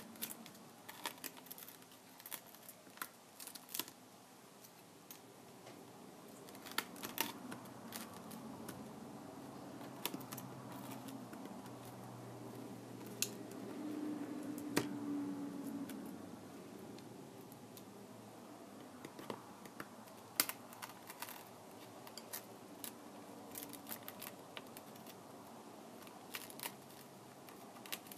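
Scattered small clicks and taps of tools and small parts being handled while a tablet is worked on. A brief low hum joins them about halfway through.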